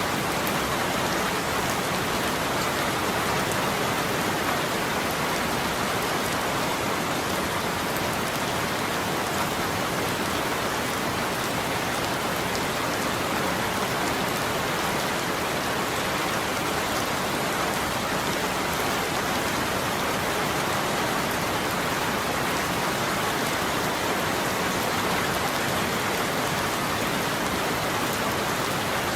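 Steady rain, an even hiss of many small drops that stays the same throughout.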